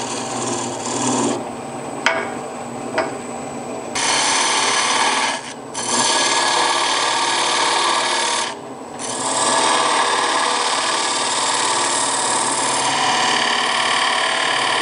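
A turning gouge cutting the end grain of a spinning big leaf maple blank on a wood lathe: a steady rasping cut. The cut goes lighter, with a couple of clicks, between about one and four seconds in, and breaks off briefly twice, about five and a half and nine seconds in.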